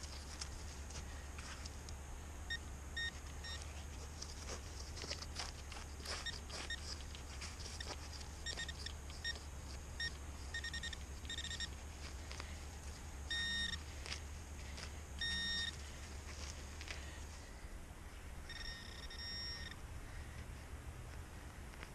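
Short, repeated electronic beeps on one pitch from metal-detecting gear sounding over a target in the dug hole, with three longer tones in the second half. Scattered clicks and scrapes of digging in dirt run underneath, over a low wind rumble on the microphone that eases off past the middle.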